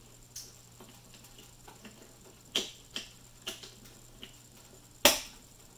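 Plastic trim cover of an MSI Optix G241VC monitor stand clicking as it is pressed onto the back of the stand: a few light clicks, then a louder snap about five seconds in as it clips into place.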